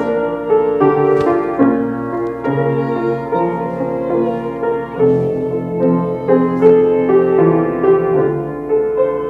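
Slow piano music, with sustained chords that change about every second.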